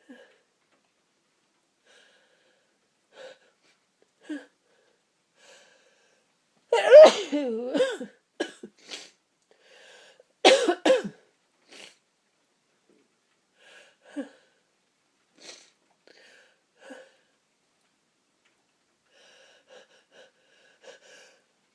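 A person sneezing from a tickling nose: one loud sneeze about seven seconds in, then a quick run of two or three short sharp ones about three seconds later, with faint sniffs and breaths in between.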